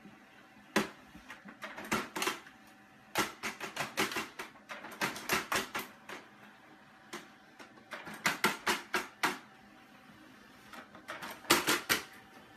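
Multifunction printer printing a page, its paper-feed mechanism making clusters of sharp clicks and clacks.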